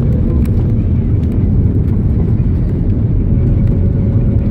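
Steady low rumble of an Airbus A330-300's engines and airflow heard inside the cabin during the landing, with a faint steady tone joining about three seconds in.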